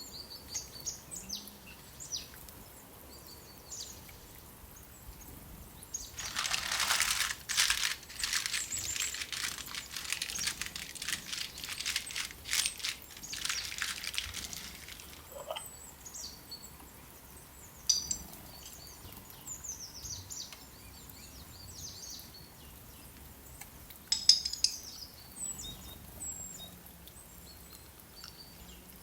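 Small birds chirping and calling throughout. For about nine seconds, a few seconds in, there is a dense crackling noise, with a couple of sharp clicks later on.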